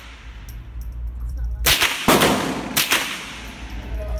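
Three rifle shots in quick succession, about half a second apart, the middle one loudest, each followed by a short echo.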